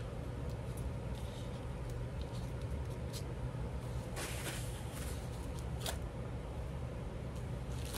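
Steady low hum, with a few soft brief paper rustles a few seconds in as glued paper is handled and smoothed.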